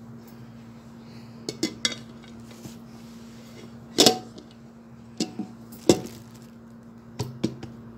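A metal cake pan clinks and knocks against a plate as it is turned upside down onto it to release the cake. There are several short, sharp knocks in small clusters, the loudest about four seconds in.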